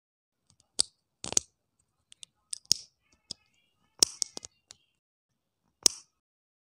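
Small hard plastic Lego pieces clicking as a minifigure's legs are snapped onto its torso: a dozen or so sharp separate clicks and taps, some in quick little clusters, the loudest about four seconds in and near the end.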